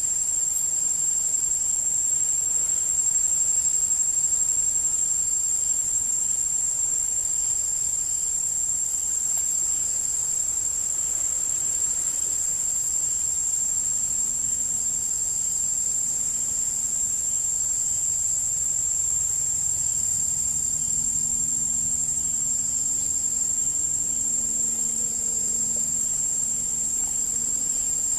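A steady, shrill insect chorus that drones on without a break at one high pitch, with fainter higher overtones.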